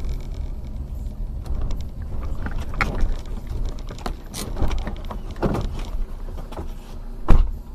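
Car interior while driving over a rough dirt surface: a steady low rumble broken by irregular knocks and thumps from the car jolting over bumps and potholes, ending with one sharp bang near the end that is the loudest sound.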